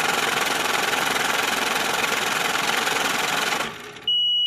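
Electronic intro sound effect: a loud, harsh rattling static noise that fades out about three and a half seconds in, followed by a short, steady high beep at the end.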